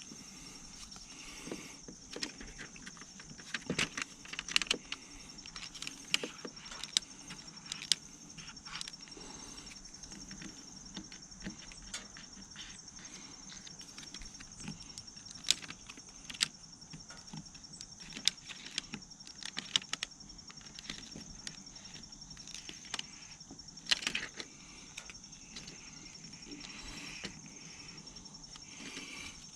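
Scattered light clicks and taps of hands working a plastic screen protector film onto a motorcycle radio's screen, over a steady high-pitched hum.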